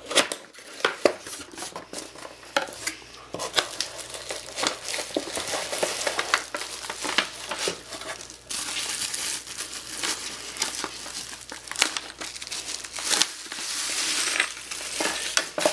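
Packaging crinkling and rustling as a boxed computer water-cooling radiator is unpacked, with many irregular sharp clicks and knocks throughout.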